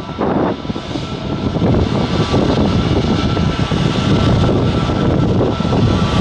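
Turkish Airlines Airbus A321neo's CFM LEAP-1A turbofan engines running at taxi power as the jet rolls past: a loud, steady engine rush with a thin high whine.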